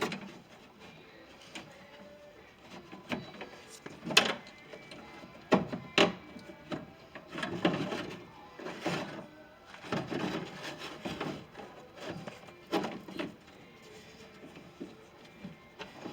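Metal door latch assembly knocking and scraping against the pickup door's inner sheet metal as it is forced at a too-small opening. Irregular clacks and rubbing, with the sharpest knocks about four and six seconds in.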